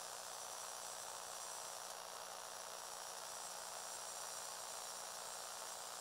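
Steady hiss with a faint high-pitched buzz and a low hum, with no distinct event: background noise of the recording.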